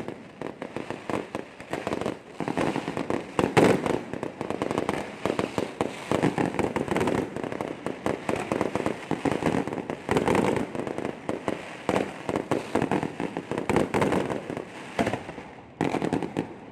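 Fireworks display finale: a dense barrage of rapid bangs and crackles that thins out near the end.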